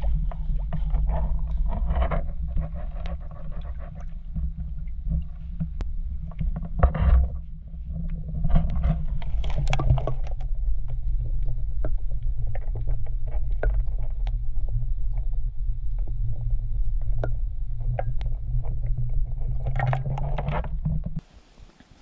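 Muffled underwater sound from a submerged action camera: a steady low rumble of moving river water with scattered clicks and knocks. It cuts off abruptly near the end as the camera comes out of the water.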